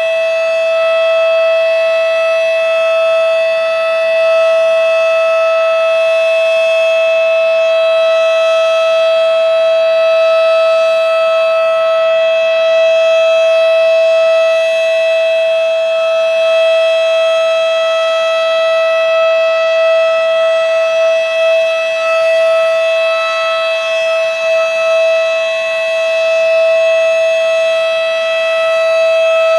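Federal Signal Model 7 single-tone chopper siren sounding its steady Alert signal: one loud, sustained tone that neither rises nor falls. The loudness wavers slightly about two-thirds of the way through.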